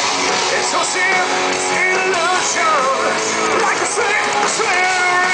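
Live heavy metal band playing at full volume, with distorted electric guitars and a high lead line that slides up and down in pitch.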